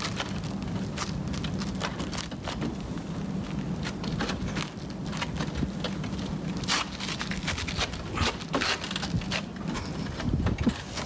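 Shoes and hands scuffing and knocking on clay roof tiles: an uneven run of sharp scrapes and clicks, busiest past the middle, over a steady low hum.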